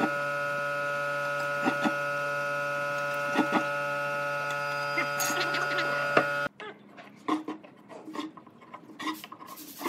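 A steady electrical hum with a light click every couple of seconds as a steel try square is set against a curved pine piece. About six and a half seconds in the hum stops abruptly, and quieter knocks and scrapes follow as a wooden marking gauge is worked along the edge of a wooden ring.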